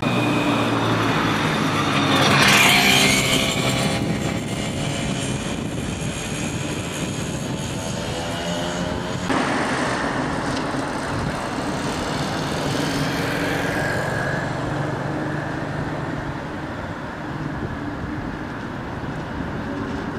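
A historic tram's motors running as it moves, heard from inside the cab, with a whine that rises and falls and a brief loud rushing noise about two seconds in. About nine seconds in the sound cuts to a historic tram approaching along street track while road traffic passes.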